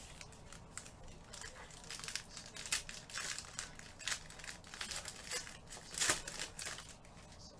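Clear plastic wrapper of a trading-card pack crinkling and tearing as gloved hands pull it open, in irregular crackles that start about a second in and are loudest about six seconds in.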